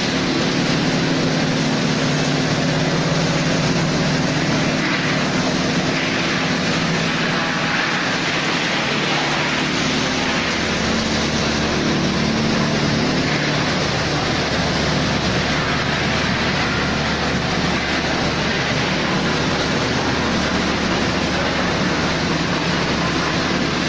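Sawdust biomass pellet-making machinery running steadily: a loud, even mechanical din with a low hum, the hum changing about halfway through.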